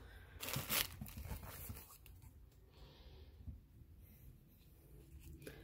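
Handling noise from a watch box being gripped and turned: a couple of short, louder rustles about half a second in, then faint scraping and rustling.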